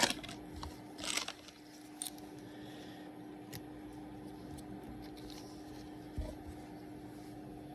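A few faint scattered clicks and rustles of small metal lockpicking tools being handled, over a steady low hum.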